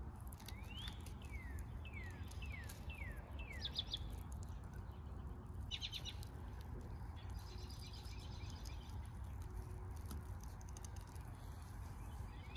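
Songbirds singing: a run of quick down-slurred whistled notes, then short rapid trills, over a faint steady low rumble.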